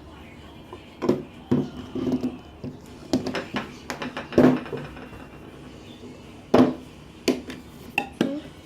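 PVC pipe fittings and horn parts handled and pushed together by hand: a string of irregular hollow plastic knocks and clicks, the loudest about four and a half and six and a half seconds in.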